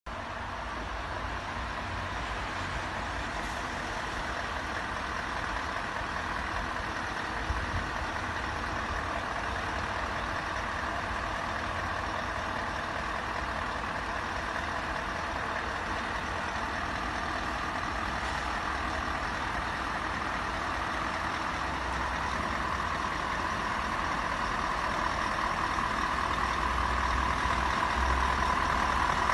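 Scania S650T truck's 16-litre V8 engine running steadily, getting gradually louder toward the end. A single short knock is heard about seven and a half seconds in.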